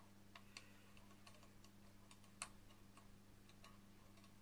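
Faint, irregular clicks of a screwdriver working the mounting screws of a CPU cooler's bracket, the loudest about two and a half seconds in, over a steady low hum.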